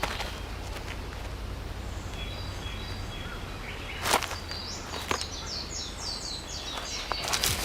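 Forest ambience with a bird calling a quick series of short high notes in the middle, and a few sharp knocks about four and five seconds in, with a louder cluster of knocks near the end.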